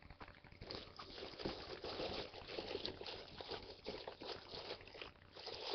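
Parcel packaging being rummaged through by hand: a dense crinkly rustle with many small crackles, starting about half a second in.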